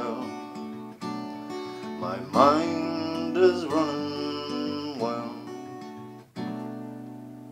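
Acoustic guitar strummed in a song's outro. A last chord is struck about six seconds in and left to ring out, fading away.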